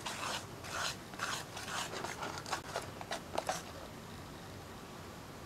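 Wire whisk beating a thick chocolate biscuit batter in a stainless steel bowl: irregular wet scraping strokes with light clicks of wire on metal, which stop about three and a half seconds in.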